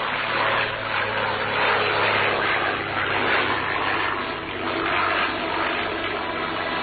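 Light propeller aircraft engine running steadily at takeoff power, the drone of the roadable flying car taking off and climbing, heard on an old newsreel soundtrack.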